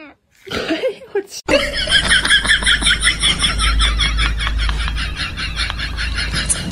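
A person laughing in a long run of quick, pitched bursts, about six a second, starting about a second and a half in, over a low rumble.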